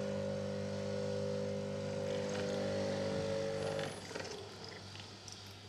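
Steady low hum made of several evenly spaced tones, which drops away about four seconds in, leaving only faint soft noises.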